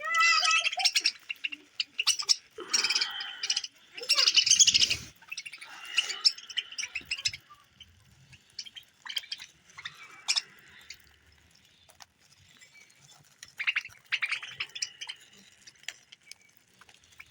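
Small pet birds chirping and chattering in irregular bursts, with quieter gaps between them.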